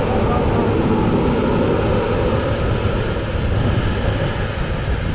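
Diesel engines of a Fendt tractor and a second tractor running hard under load, a steady heavy drone as they tow a lorry through deep mud.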